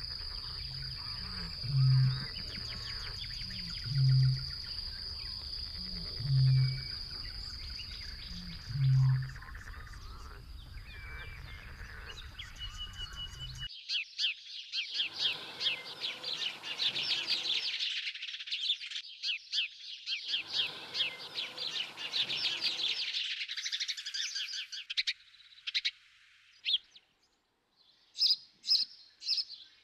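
Wetland bird sounds. First a deep boom repeated about every two seconds over a steady high whine. Then, after a sudden change about halfway through, a dense, rapid chattering rattle that fades out near the end.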